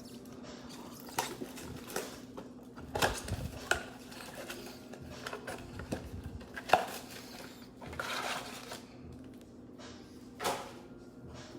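Scattered clicks, taps and brief rustling of cardboard and wrappers as a trading-card blaster box is opened and its packs handled, over a faint steady hum.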